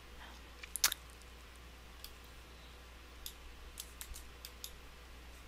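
Computer mouse clicking: a sharp double click just under a second in, then a few faint scattered clicks, over a low steady hum.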